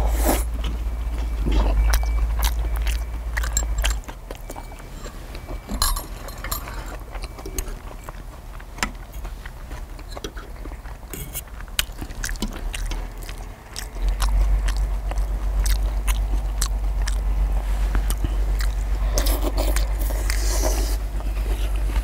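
Steel knives and forks clicking and scraping against a cast-iron pot-lid griddle as hamburger steaks are cut, with biting and chewing. A low rumble underneath drops away about four seconds in and returns about ten seconds later.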